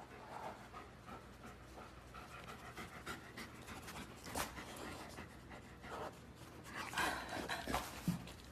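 A large long-haired dog panting quietly in uneven breaths, with a few louder breaths about halfway through and again near the end.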